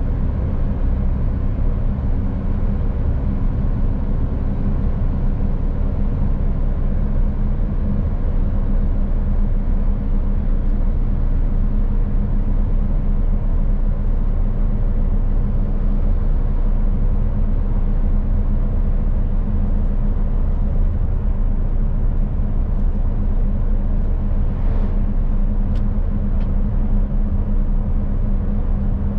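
2018 Mercedes Actros truck on the move, its diesel engine running with a steady low drone under road and tyre noise.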